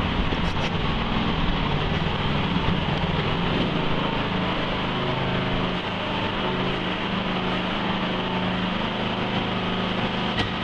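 Small engine of a Wacker Neuson walk-behind mini dumper running steadily as it drives with a load of screed, its pitch shifting a little partway through.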